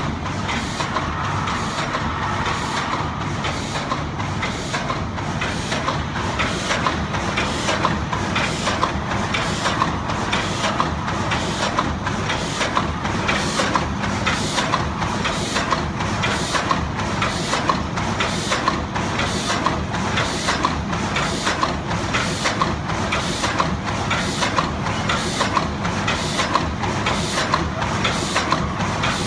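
ZBJ-NZZ middle-speed paper cup forming machine running: a steady mechanical clatter of motor and drive with a sharp, regular clack about once a second, in step with its rate of 60–70 cups a minute.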